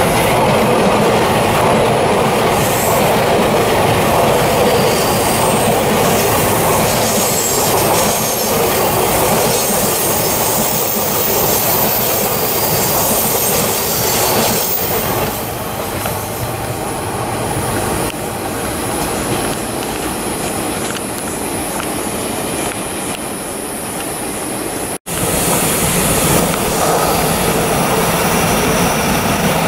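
A Taiwan Railways electric passenger train passing at close range, its wheels running over the rails in a continuous loud rumble. It eases a little past the midway point, breaks off abruptly about 25 seconds in, and train noise resumes straight after.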